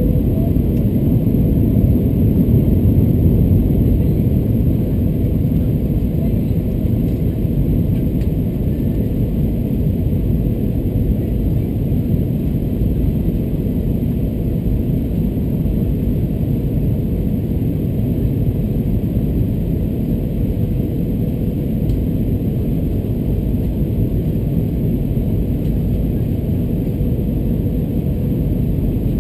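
Steady low rumble inside the cabin of an Airbus A321-211 on approach to land, the noise of its CFM56 turbofan engines and airflow along the fuselage, with a faint steady hum running underneath.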